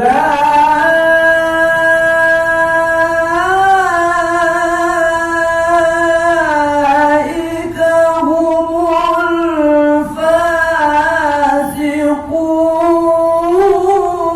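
A man reciting the Quran in the melodic tilawah style, singing one long high-pitched phrase held on sustained notes with ornamental turns and bends in pitch. It starts sharply and runs with only brief dips for breath.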